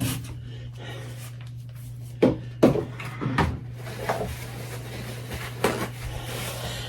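A few short knocks and clunks of things being handled and moved in a kitchen, over a steady low hum.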